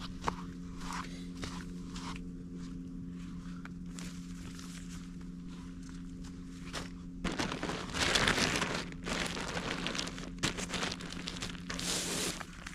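Footsteps crunching and rustling on rough ground, louder about halfway through, over a steady low hum that stops about halfway through.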